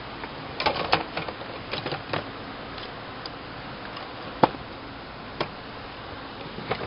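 Hand tools in a tool box clinking and clicking as they are handled: a few quick clusters of sharp clicks in the first couple of seconds, then a single loud click past the middle and a lighter one after it, over a steady hiss.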